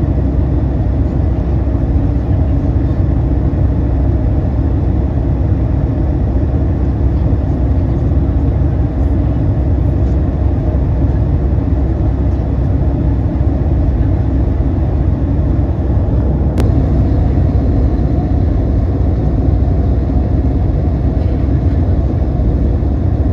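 Steady low rumble of a passenger jet's engines and airflow, heard from inside the cabin in flight.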